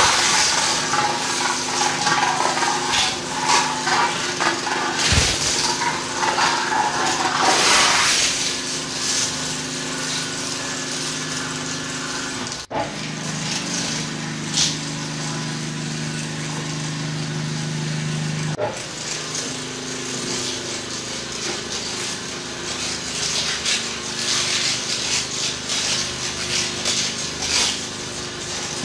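Twin-shaft shredder's steel cutter discs crunching and tearing aluminium drink cans and plastic, over the hum of its drive. The crunching is loudest and densest in the first eight seconds. The machine then runs with a lighter grind and a steady hum, and gets noisier again near the end.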